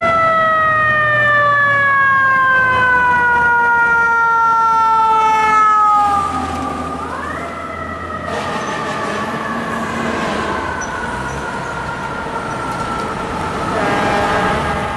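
Fire truck's mechanical siren, on a 2009 Seagrave Marauder pumper running as FDNY Squad 18's spare, winding down slowly in pitch. About seven seconds in it is spun up again with a quick rise and begins another slow wind-down, over the rumble of city traffic.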